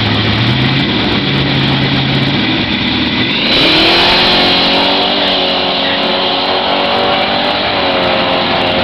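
1968 Plymouth Road Runner's 426 Hemi V8, built for drag racing, running at the starting line. About three and a half seconds in it launches at full throttle, the note jumping up sharply, then pulls hard and steadily away down the drag strip.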